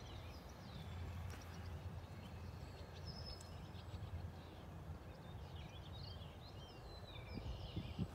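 Small birds chirping and singing in short phrases over a steady low outdoor rumble, with a few soft low knocks near the end.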